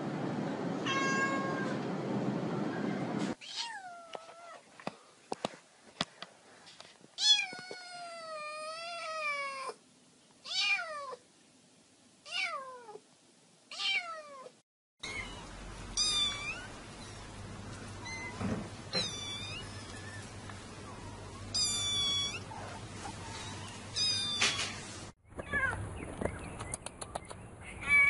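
Domestic cat meowing over and over: a string of short calls that rise and fall in pitch, with one drawn out for about two seconds.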